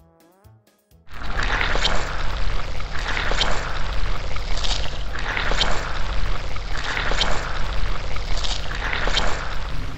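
Car-wash sound effect: a loud rushing of water spray and spinning brushes that starts abruptly about a second in and swells and eases roughly once a second.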